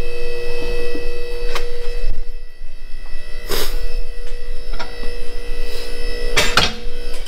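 Steady electric hum with a few sharp clicks, about three times.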